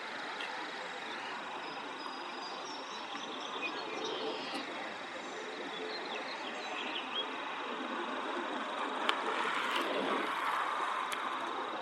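Steady outdoor rushing ambience with faint bird chirps through the middle and two sharp clicks near the end.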